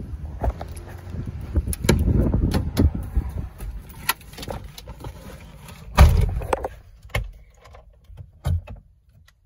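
Irregular clicks, knocks and rustling handling noise over a low rumble, with a heavy thump about six seconds in and a smaller one near the end.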